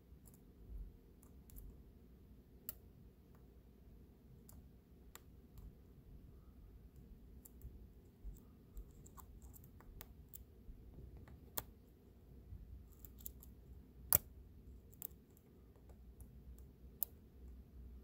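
Faint, irregular clicks and scratches of a lock pick working the pins of a four-pin Sargent & Greenleaf cabinet padlock under a tension wrench, with one sharper click a little past three-quarters of the way through.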